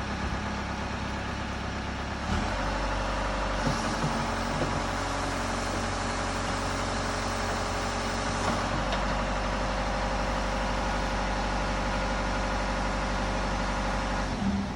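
Backhoe's diesel engine running steadily, stepping up in engine speed about two seconds in and holding there, then cutting off right at the end.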